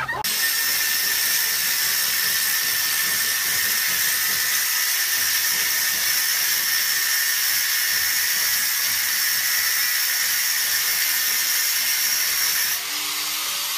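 Electric angle grinder running and grinding metal with a steady, high-pitched whine and hiss; the sound eases a little about 13 seconds in.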